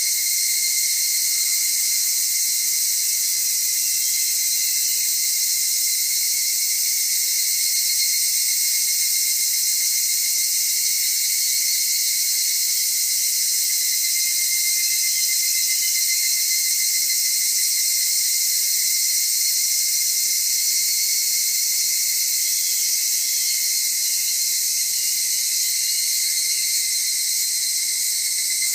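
Steady, dense, high-pitched chorus of higurashi evening cicadas (Tanna japonensis), with a few fainter warbling calls standing out of it around the middle and again near the end.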